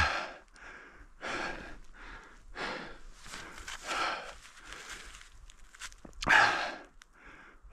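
A person breathing hard and rhythmically, with a heavy breath about every second and a half; the loudest comes near the end. The hiker is out of breath from snowshoeing up a snowy mountain ridge.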